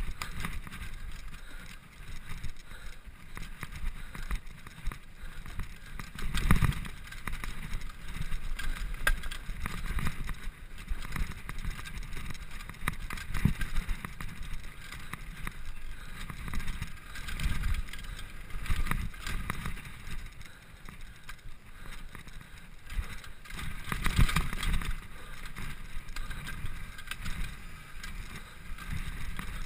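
Downhill mountain bike ridden fast over a rough dirt trail: tyres on dirt and a steady rattle of the bike, with frequent knocks and several louder jolts over bumps.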